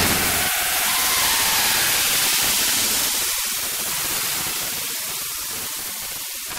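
Steady high hiss of synthesized white noise in an electronic composition, with almost no low end and growing slightly softer near the end.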